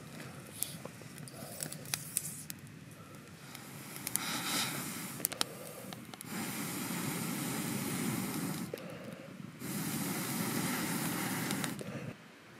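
Wood fire crackling in a small box-shaped twig stove, then air blown into it through a fire-blowing pipe: a short puff, then two long steady rushing hisses with a brief break between them, fanning the flames.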